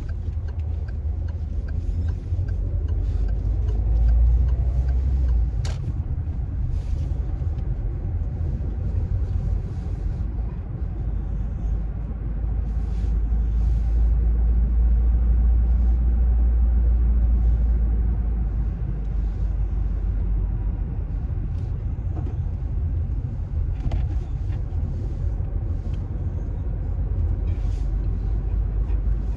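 Car driving, a steady low road and engine rumble heard from inside the cabin, swelling louder a couple of times, with a few faint clicks.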